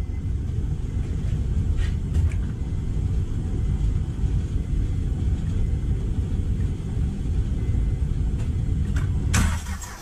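Starter motor cranking the engine over without it starting, a steady low rumble that cuts off about nine and a half seconds in. It is the crank for a compression test on cylinder 6, which reads low: a leaking intake or exhaust valve, in the mechanic's reading.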